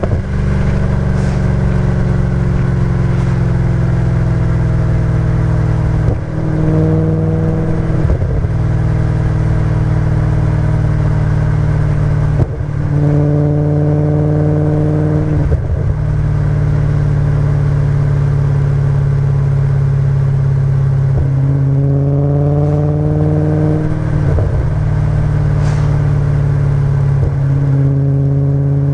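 Audi B7 RS4's 4.2-litre V8 through a Milltek cat-back exhaust, driving: a steady drone broken by several pulls where the engine note climbs and then drops suddenly, as at an upshift.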